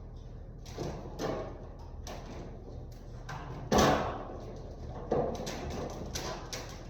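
Drain pan of an HVAC wall unit being worked loose from its tabs: a series of knocks and clunks, the loudest about four seconds in and another sharp one about a second later.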